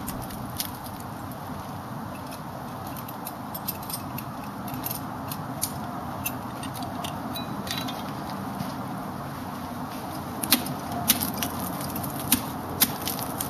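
Metal ice-climbing hardware clinking and clicking, carabiners and ice screws knocking together while an ice screw is placed, with several louder clicks near the end.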